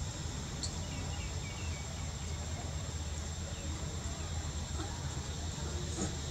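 Steady outdoor background: a low rumble under a high, even whine, with a few faint short chirps about a second in.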